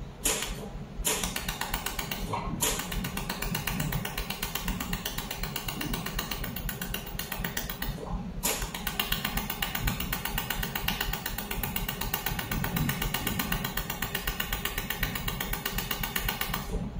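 200 W mold laser welder firing a rapid, steady train of laser pulses, heard as fast even ticking. It breaks off briefly about a second in and again for about half a second around eight seconds in. A low machine hum runs underneath.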